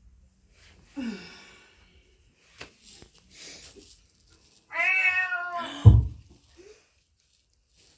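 Meowing: a short, falling meow about a second in, then a longer, louder meow at about five seconds. The longer one is cut off by a heavy thump.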